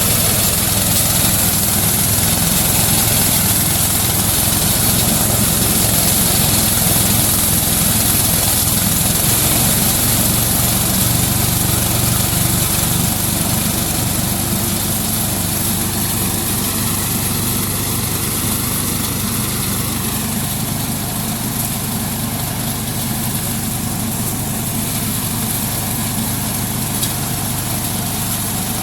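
Engine-driven rice thresher (power thresher) running steadily, its small engine and threshing drum making a continuous mechanical drone that eases slightly about halfway through.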